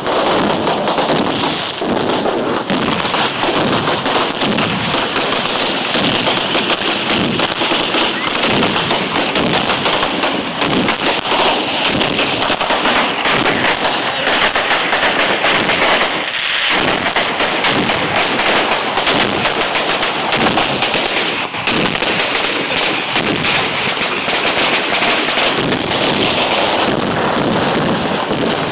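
A long string of firecrackers going off in a rapid, continuous crackle, with brief lulls about 16 and 21 seconds in.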